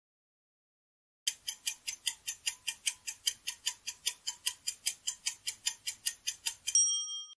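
Countdown timer sound effect: clock ticks, about five a second, starting just over a second in, ending in a bell-like ding near the end that fades out.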